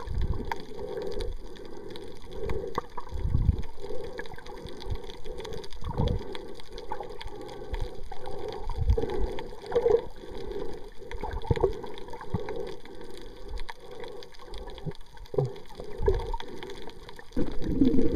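Muffled water sounds recorded underwater: irregular sloshing and gurgling with scattered low thumps, getting louder near the end.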